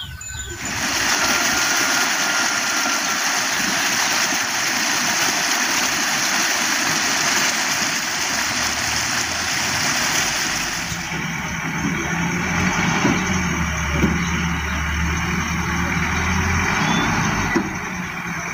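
Motor-vehicle road noise: a loud steady rush that starts and stops abruptly, then an engine's low steady hum in the second half.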